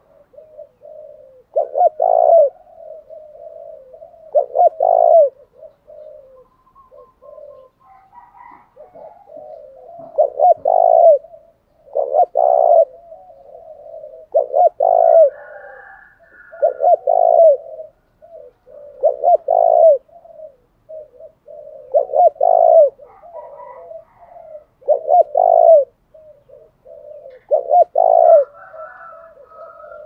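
Spotted dove cooing its repeated territorial challenge call, the call decoy birds use to provoke wild doves. Each phrase comes about every two to three seconds. Fainter, higher bird calls sound in a few of the gaps.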